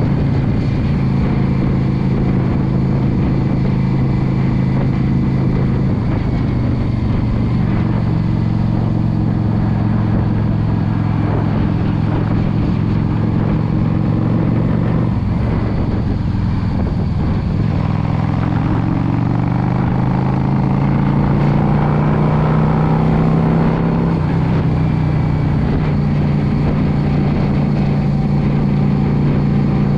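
Yamaha V Star 650's air-cooled V-twin running steadily under way. About halfway through, the engine note drops, then rises over several seconds as the bike accelerates, and settles again.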